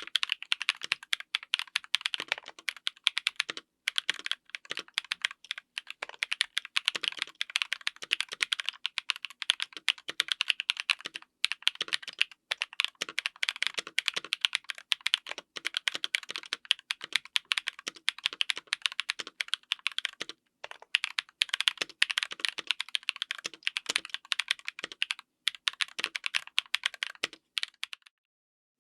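Fast, continuous typing on a mechanical keyboard fitted with stock Durock Mamba linear switches on an FR4 plate: a dense stream of keystrokes with a few brief pauses.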